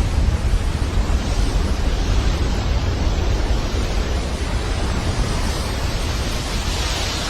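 Loud, steady radio static: an even hiss with a heavy low rumble and no voice or tones in it.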